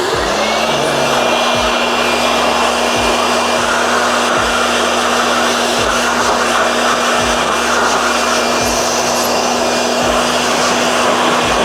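Electric blower switched on, spinning up within a moment and then running steadily to dry out a freshly washed motorcycle air box.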